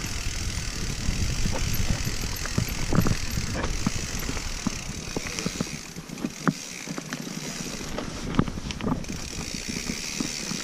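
Mountain bike rattling and clattering as it rolls down a rough dirt trail, with many scattered knocks from the bike over bumps. A low rumble under the clatter eases about halfway through.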